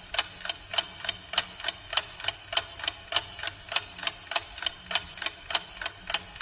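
Ticking-clock sound effect: quick, even ticks, several a second, counting down thinking time for a riddle.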